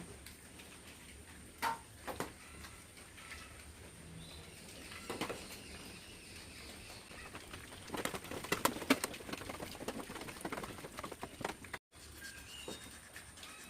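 Hand carving in wood: scattered taps and scrapes of a chisel working the wood, with a quick run of knocks about eight to nine seconds in.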